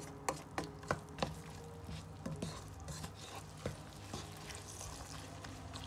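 Wooden spoon stirring radish pods in an oily masala in a non-stick wok: sharp knocks of the spoon against the pan about three times a second for the first second or so, then softer, scattered scraping and ticks.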